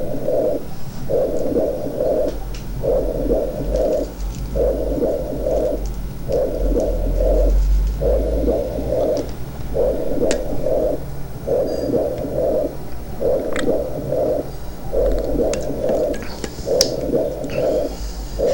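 Whispered counting heard through a stethoscope on the chest wall over a pleural effusion or atelectasis, coming through as whispered pectoriloquy. It is a regular series of short muffled bursts, about one every second and a half.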